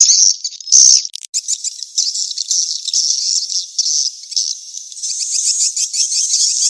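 Swiftlet calls: a few loud high chirps in the first second, then a dense, fast twittering rattle. This is the mating-chase (kejar kawin) call, played to lure swiftlets into a nesting house.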